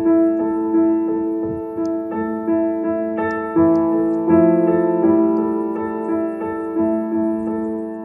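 Background music: a piano playing a slow run of sustained notes, struck about twice a second.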